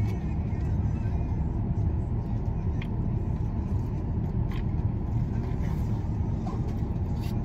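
Steady low rumble of a vehicle's engine and road noise heard from inside the cabin.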